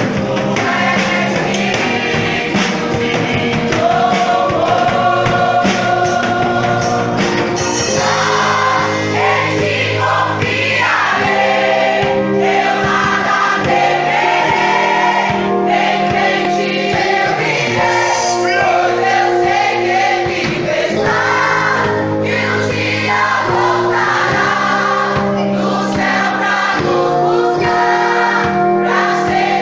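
Music with a choir singing over it, in a gospel style.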